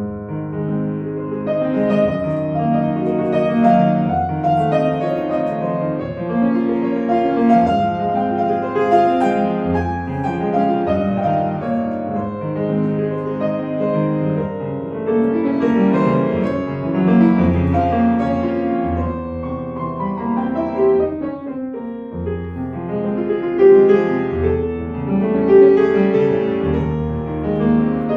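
Solo piano playing classical music, with continuous full chords over a moving bass line.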